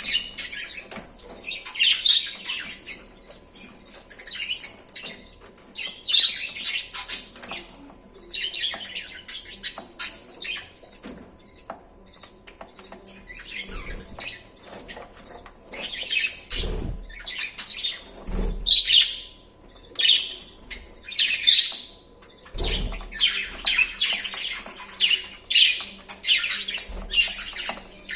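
Budgerigars chirping and squawking in quick, overlapping short calls, with a few dull thumps in the second half.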